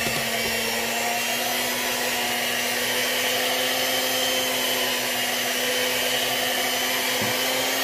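Electric hand mixer running steadily at one speed, its beaters whirring through thick cake batter.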